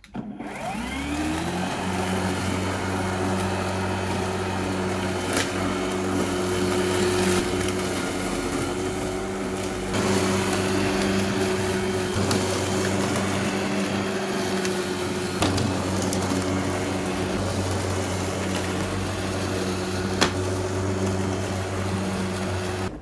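Ferrex 40V cordless lawnmower's three-phase electric motor spinning up with a rising whine, then running steadily while the blade cuts grass, with a few sharp ticks. The blade is now turning the correct way after two motor phase wires were swapped, so it cuts and collects grass in the box.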